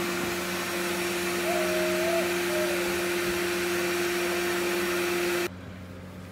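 A machine running steadily in the workshop, a constant motor hum and whine, cutting off suddenly about five and a half seconds in.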